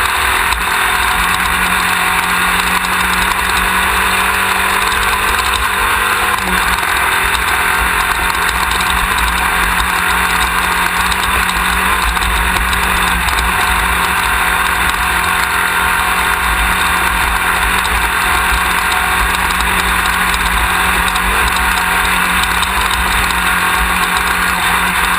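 Class 1600 off-road race buggy's engine running hard at a fairly steady pitch, with a slight drop about six seconds in, over loud rumbling road and wind noise from the rough desert course.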